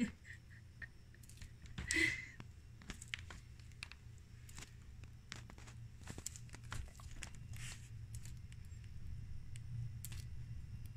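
Green iguana chewing banana, with scattered soft, wet clicks and smacks from its jaws and a brief louder rustle about two seconds in.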